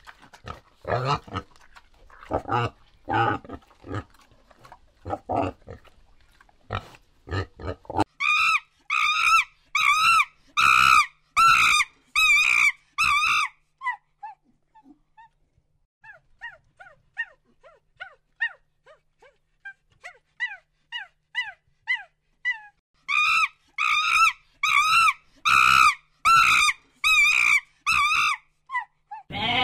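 A warthog grunting in short, rough bursts for about the first eight seconds, then a run of high, wavering monkey calls, about two a second. The calls drop to softer chirps in the middle and grow loud again near the end.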